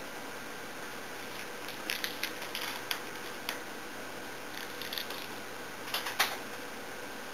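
Computer keyboard being typed on: irregular key clicks in small clusters, the loudest about six seconds in, over a steady faint hiss.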